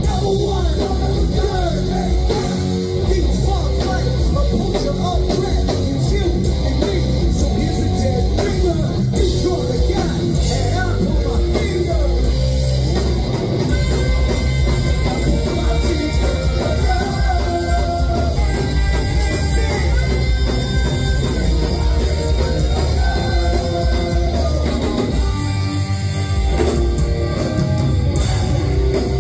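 Rock band playing live at full volume: electric guitar, bass guitar and drum kit driving a steady beat under a lead vocal.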